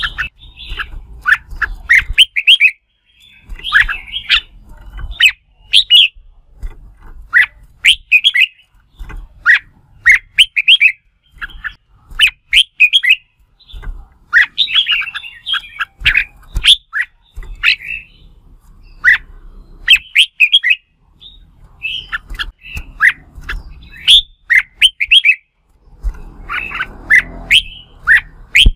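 Red-whiskered bulbul singing its competitive fighting song: short, quick, clear whistled phrases, repeated every second or two with brief pauses between them.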